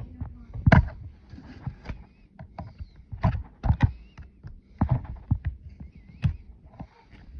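Irregular sharp clicks and knocks of a small screwdriver and loose metal chuck parts as the bit-holding chuck of a Porter-Cable impact driver is taken apart, the loudest knock a little under a second in.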